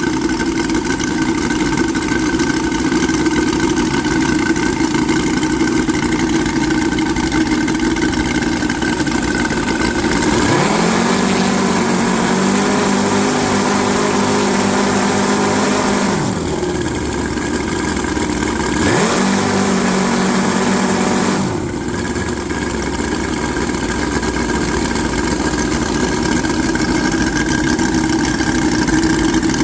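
Twin UMS 5-55 five-cylinder radial model-aircraft engines running together during break-in, each swinging a 20x8 propeller. The engine note shifts in pitch twice in the middle as the throttle is changed, then settles back to a steady run, with the two engines almost in sync.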